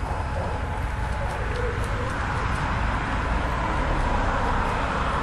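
Steady outdoor background noise with a constant low rumble and an even hiss, with no distinct event standing out.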